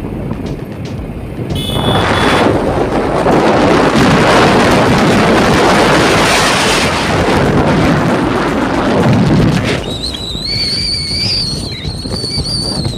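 Wind rushing loudly over the microphone, as from travelling in a moving vehicle, easing off about ten seconds in. A high, wavering whistle-like tone then takes over until the end.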